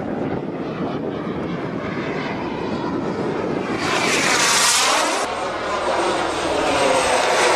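Turbine-powered radio-control BAE Hawk model jet flying past, its microturbine a steady rushing whine that swells into a loud sweeping whoosh about four seconds in as it passes close overhead, dips, then builds again near the end.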